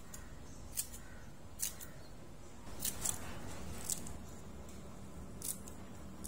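Kitchen scissors snipping a green onion into short pieces: several crisp, separate snips spaced roughly a second apart.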